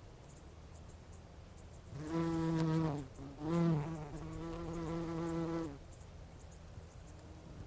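Bumblebee buzzing in flight close by: the wingbeat hum starts about two seconds in, breaks off briefly, rises in pitch again and holds steady before stopping about six seconds in.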